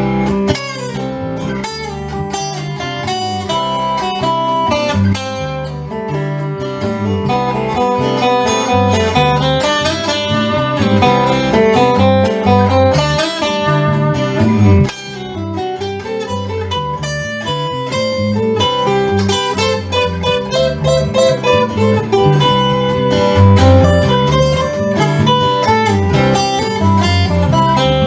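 Instrumental music: acoustic guitar picked and strummed in a bluesy style, with no singing.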